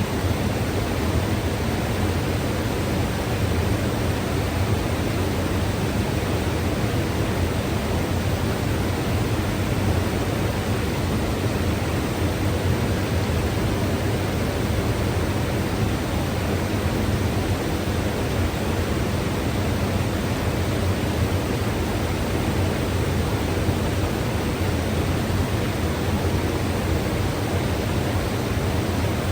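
Mountain river rushing steadily, a dense even roar of moving water with most of its weight low down.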